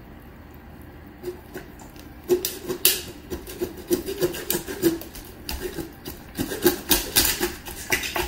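Knife cutting along the backbone of a raw turkey, crunching through the thick bones in a run of irregular cracks and snaps. The crunching starts about two seconds in.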